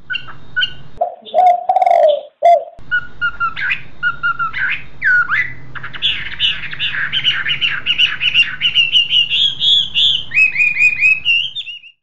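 Birds chirping and singing, many short calls overlapping in quick succession, densest in the second half, over a faint low hum; the birdsong cuts off just before the end.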